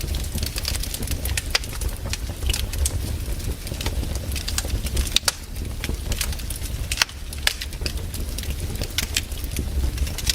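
Firewood burning, crackling with irregular sharp pops and snaps over a steady low rumble of the fire.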